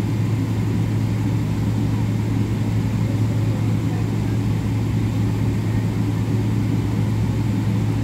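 Airliner cabin noise on the ground: the steady drone of the engines and cabin air with a strong low hum, even and unchanging throughout.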